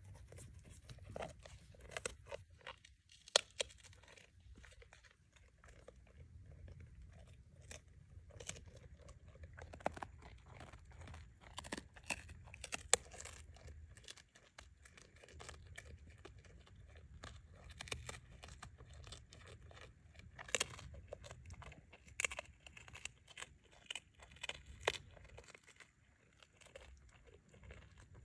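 A deer chewing a crunchy breadstick close up: irregular crisp crunches and bites, some louder than others, with wet mouth sounds.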